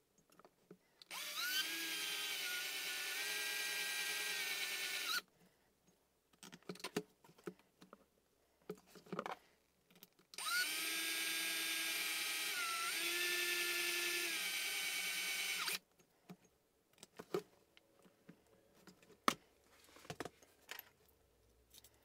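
Cordless drill with a 1.6 mm bit running in two bursts of about four and five seconds, each spinning up and dipping briefly in pitch partway through, drilling a tap hole deeper for an M2 screw. Light handling clicks between and after the runs.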